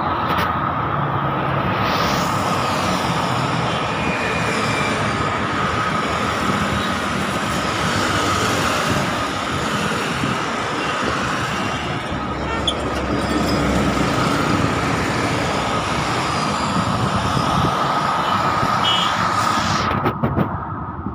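Steady roar of busy city road traffic, motorcycles, scooters, auto-rickshaws and cars passing close by.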